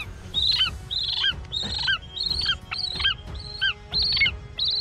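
A bird calling over and over in high, arching chirps, about two a second. Steady held notes come in beneath it about three seconds in.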